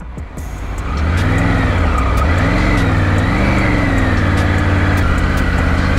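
Triumph Tiger 900 motorcycle's three-cylinder engine running at low road speed, its note rising and falling gently with the throttle. It swells about a second in and then holds steady.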